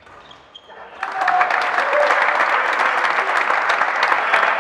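Spectators' applause breaking out suddenly about a second in and going on steadily as dense clapping, with a few voices calling out.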